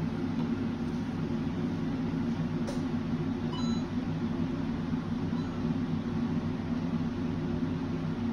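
Steady low mechanical hum, like a running motor or ventilation, with a faint click a little under three seconds in.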